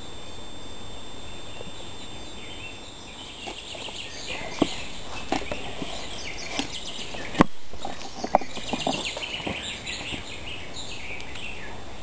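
Small songbirds giving rapid, high chirps, starting a few seconds in, over a steady outdoor hiss. Scattered clicks and knocks sound among the chirps, one much sharper than the rest about seven and a half seconds in.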